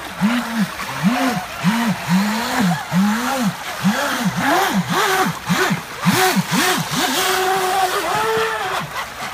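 RC jet boats' motors being revved up and down over and over, each rev a short rising-then-falling whine, about two a second, ending in a longer held, higher whine near the end. Rushing, splashing shallow river water runs underneath.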